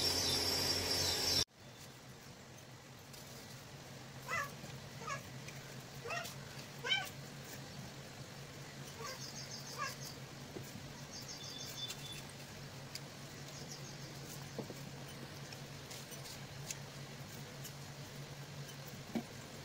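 Several faint, short animal calls, each falling in pitch, spread over a few seconds, over a steady low hum. Before them, a louder stretch of sound cuts off abruptly about a second and a half in.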